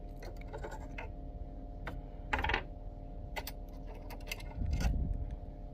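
Scattered clicks and light knocks of hard parts being handled as the top cover of a Singer Heavy Duty sewing machine is taken off, with a louder rattle about two and a half seconds in and a duller knock near the end.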